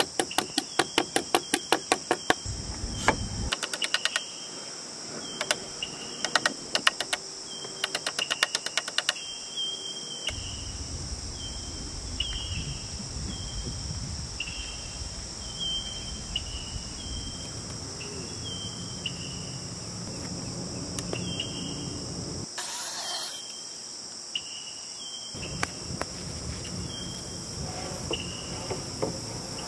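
Claw hammer driving nails through a steel joist hanger into a wooden stair stringer, in quick runs of sharp strikes about five a second during the first nine seconds or so. A steady chorus of insects trills throughout.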